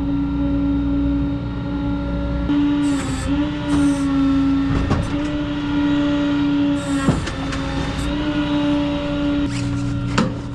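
Tow truck running with a steady whine that dips in pitch a few times, with scattered clicks and clanks.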